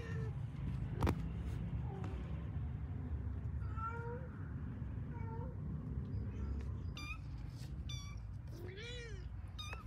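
Kittens mewing, about eight short calls at different pitches, some thin and high, growing more frequent near the end. A single sharp knock about a second in, over a steady low rumble.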